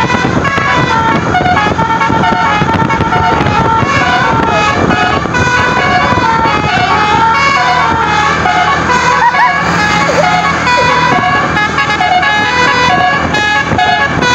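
Bus 'telolet basuri' musical air horn playing a continuous melody of stepping, multi-tone notes over vehicle noise.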